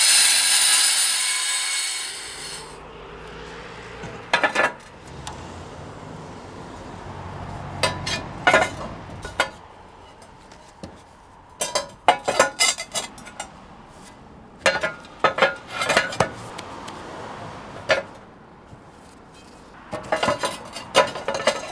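An angle grinder's cutting disc grinding the top edge of a roof tile to chamfer it, a loud hissing cut that dies away after about two and a half seconds. Then roof tiles clack and knock against each other and the battens as they are set in place, in scattered clusters of sharp clicks.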